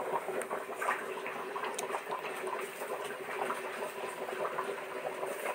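Hot oil sizzling and crackling steadily in a pan as sliced garlic and dried red chillies fry, with a faint steady hum and a couple of light clicks.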